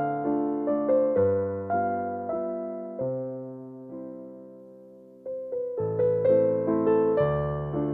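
Soft background piano music: gentle notes that slow into a few long, fading tones midway, then pick up again.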